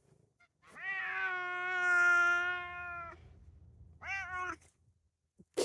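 Male Bengal-cross cat meowing: one long drawn-out yowl of about two and a half seconds that rises at the start and then holds steady, followed about a second later by a shorter meow. A brief burst of noise comes near the end.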